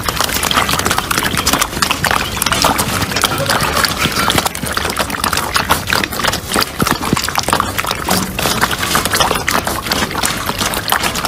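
Several puppies eating soaked kibble together from a metal bowl: a steady mass of wet lapping, smacking and chewing clicks with no pause.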